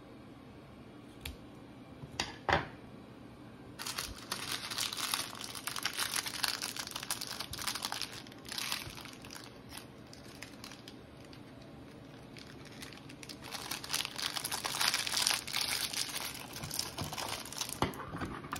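A few sharp clicks about two seconds in from scissors cutting tubular gauze, then a clear plastic wrapper crinkling as it is handled, in two long stretches of several seconds each.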